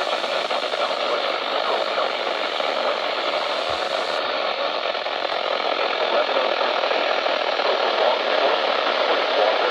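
Steady hiss of radio static from a weather radio receiver after the broadcast voice has cut off.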